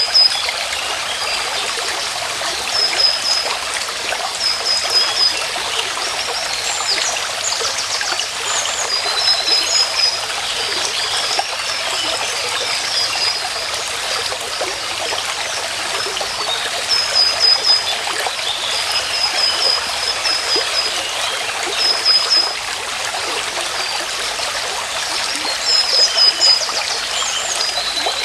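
Stream water running and trickling steadily, with a bird repeating short clusters of high chirps every couple of seconds.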